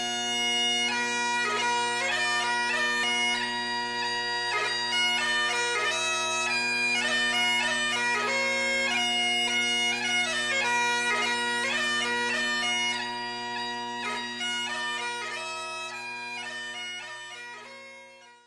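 Great Highland bagpipe playing a tune, the chanter's melody moving over the steady drones; it fades out near the end.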